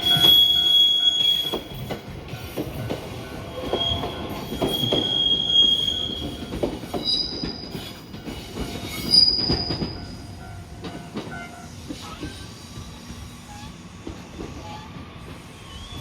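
A train running past, its wheels squealing on the rails in thin high-pitched tones with repeated clacks from the wheels, loudest for the first ten seconds or so and then dying away.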